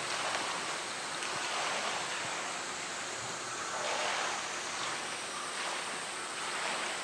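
Steady rushing of running water, swelling and easing a little.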